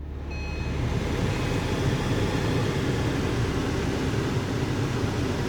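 Car cabin with the engine just started: a steady rush of air from the ventilation fan over a low engine idle hum. The fan noise swells over the first second, then holds steady.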